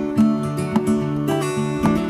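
Background music: an acoustic guitar playing chords, with a fresh plucked stroke about twice a second.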